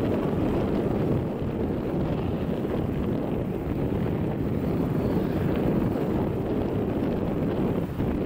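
Distant Boeing 787-8 Dreamliner's jet engines at takeoff thrust, a steady low rumble as the airliner rolls down the runway and lifts off, with wind buffeting the microphone.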